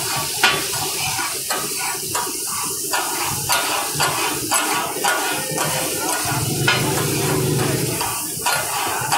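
Steel spatula blades clacking and scraping on a large flat iron griddle as katakat is chopped and stirred, over a steady sizzle of frying oil and steam. The clacks come unevenly, about one or two a second.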